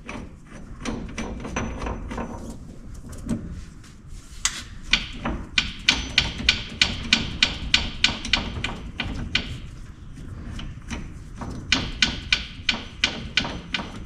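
Evenly spaced sharp metallic clicks, about three a second, in two runs with a short pause between. They come from working the wheel bearing press tool's screw and nut onto the hub.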